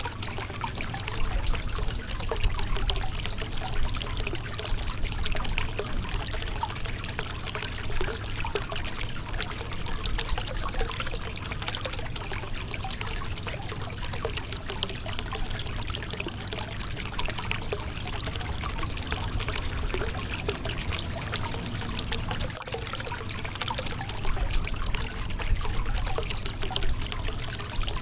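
Shallow river water rushing and splashing over a rocky bed: a steady babble with many small splashes and trickles.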